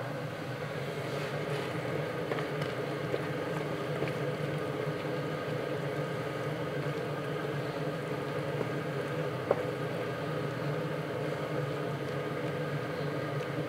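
Steady mechanical hum, even throughout, with a few light clicks, the sharpest about nine and a half seconds in.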